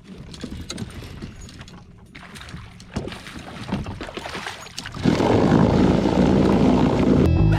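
Light splashing and knocking of water around a kayak. About five seconds in comes a loud rush of wind buffeting the microphone.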